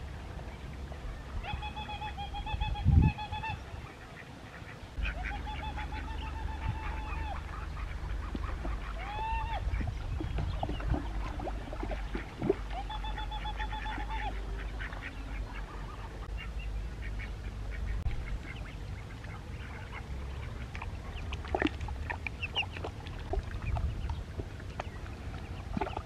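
Waterfowl calling: four long, wavering calls in the first half, then fainter scattered calls, over a steady low rumble.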